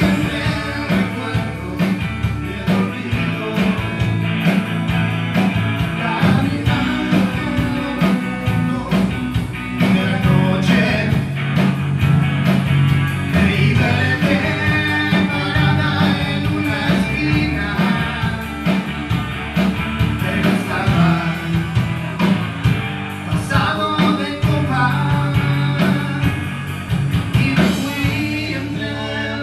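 Live rock band playing: electric guitars over bass and drums, loud and steady throughout.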